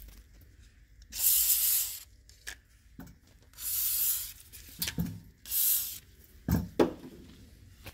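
Aerosol can of WD-40 silicone spray hissing in three bursts, the last one shorter, lubricating the rubber bushing so it can be pressed into its bracket. A few dull knocks follow near the end.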